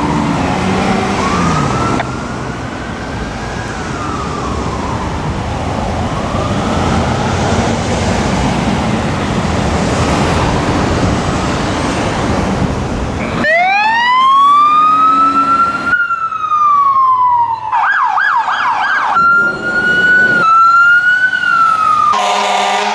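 Fire engine's electronic siren wailing in slow rising and falling sweeps over engine and traffic noise. About 13 seconds in it gives way to a cleaner, louder siren that winds up and briefly switches to a fast yelp, and a horn blasts near the end.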